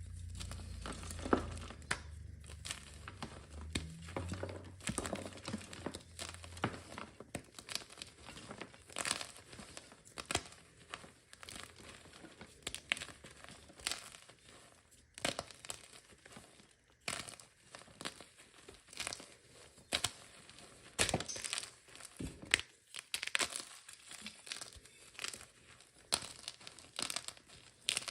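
Gym chalk being crushed into crumbles: a run of irregular, dry crunches and crackles.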